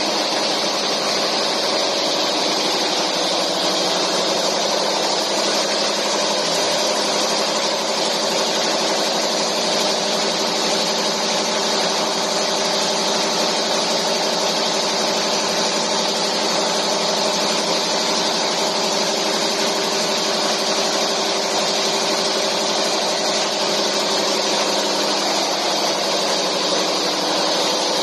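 Automatic high-speed wire nail-making machine running steadily: a continuous, unchanging mechanical running noise with several steady tones.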